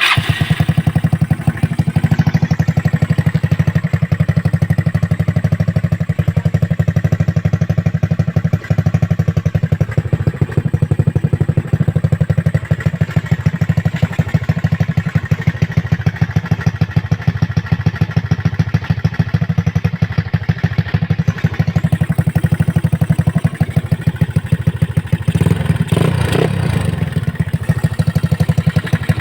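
Yamaha Mio scooter's single-cylinder four-stroke engine, built up with a 59 big-valve setup, running loud through its exhaust with a rapid, choppy pulse, given one short rev near the end.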